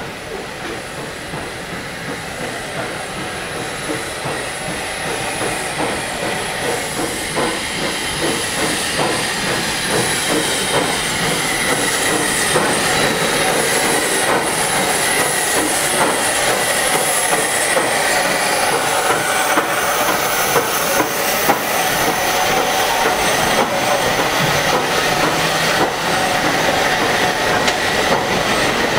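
Southern Railway Q class 0-6-0 steam locomotive No. 30541 drawing a goods train of tank wagons and vans slowly past. It grows louder over the first dozen seconds, then the wagon wheels clank steadily over the rail joints under a high squeal.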